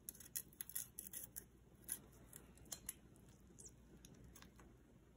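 Faint crisp ticks and scrapes of a cleaver blade cutting along the shells of raw shrimp as they are cleaned. The ticks come in a quick cluster over the first second and a half, then more scattered.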